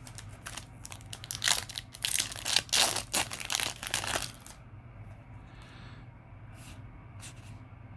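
Foil trading-card booster pack wrapper crinkling and tearing for about four seconds, then a few light ticks.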